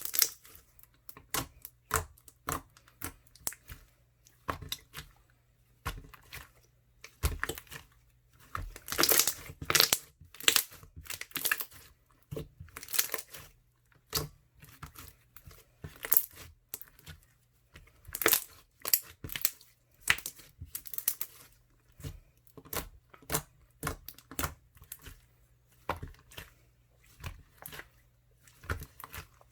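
Crunchy clear-glue slime being squeezed and worked by hand, giving clusters of sharp crackles and air-bubble pops about once a second, loudest around nine to eleven seconds and eighteen seconds in. A faint steady low hum sits underneath.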